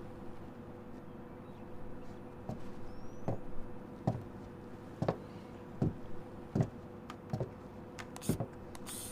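A series of soft, dull thuds at an even, slow pace, roughly one every three-quarters of a second, starting a couple of seconds in, over a steady low hum.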